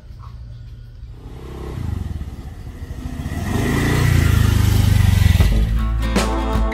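Motor scooter engine running and revving as it pulls away, growing louder and loudest about four to five seconds in. Acoustic guitar music comes in near the end.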